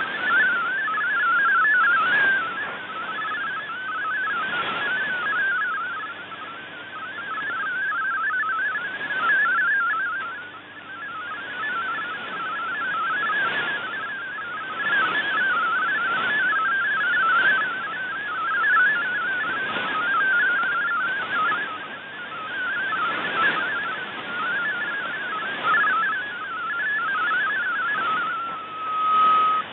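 MFSK32 digital-mode data signal from a shortwave broadcast on 9400 kHz: a warbling cluster of rapidly hopping tones around 1.5 kHz, heard through shortwave hiss with recurring noise swells from fading and static. Near the end the warble settles into a single steady tone.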